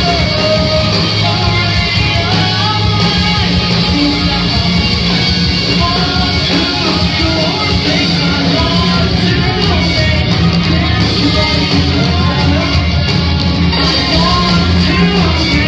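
Live rock band playing loud, with a singer's vocals over electric guitar and a heavy low end.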